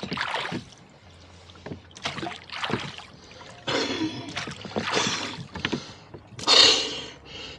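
Rowboat under oars: water splashing and churning in irregular bursts, the loudest about six and a half seconds in.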